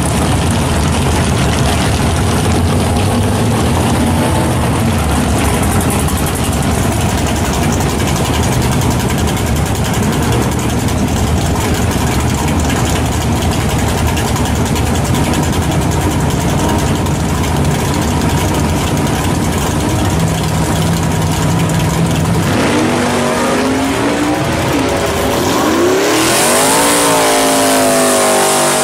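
Drag-race car engine idling loudly for a long stretch, then revved up and down several times near the end. A loud tyre hiss comes in over the revving as the rear tyres spin in a burnout.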